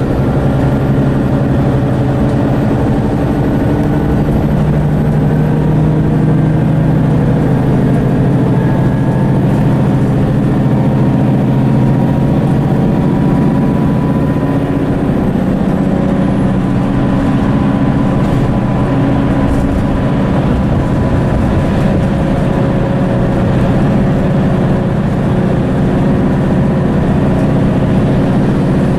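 Mercedes-Benz Citaro bus's Daimler OM906hLA six-cylinder diesel running steadily under way, heard from inside the passenger saloon with road noise. A faint steady whine comes in about a third of the way through.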